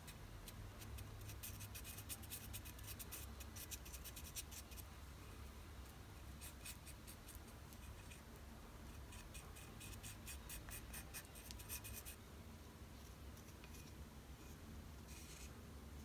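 Wooden stick scraping and stirring two-part epoxy on a wooden board: faint, rapid scratchy strokes in three spells, with a short one near the end.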